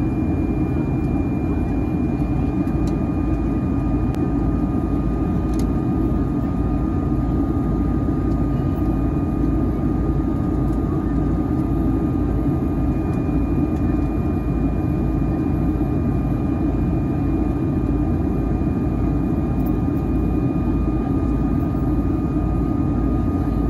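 Steady cabin drone of a Boeing 757-300 in descent, heard from a window seat beside the wing: engine and airflow noise, with a thin steady whine above it and a second, lower whine that joins a second or two in.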